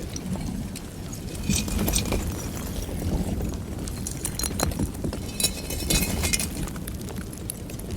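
Lava flow at Kīlauea: clusters of sharp crackling and glassy clinking as the cooling crust breaks up, over a steady low rumble. The crackling comes in bunches about two, four to five, and six seconds in.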